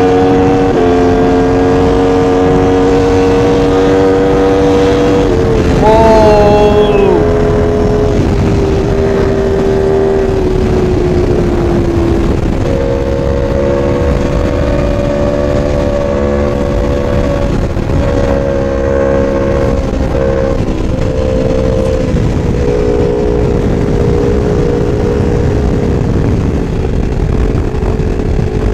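Sport motorcycle engine running at high, steady revs at highway speed, with wind rushing over the microphone. About six seconds in the engine note briefly wavers at its loudest. Around twelve seconds in the pitch sags and then jumps up and holds again.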